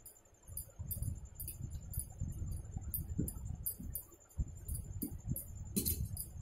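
Hand mixing and kneading rice with curry in a steel plate, a soft squishing and rubbing, with light clinks two or three times a second as the hand moves, and a sharper clink near the end.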